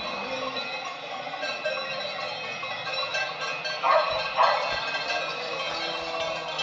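Many cowbells on a herd of walking cows ringing together, a steady jangle of overlapping tones. About four seconds in, a dog barks twice.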